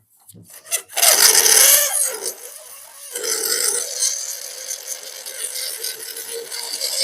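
Slime being pressed and worked by hand, a continuous crackling, rasping noise that starts about a second in and eases briefly two to three seconds in.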